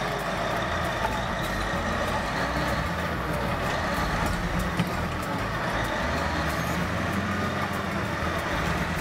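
Caterpillar D9R crawler bulldozer's V8 diesel engine running steadily under load as it pushes dirt, with clanking from its steel tracks.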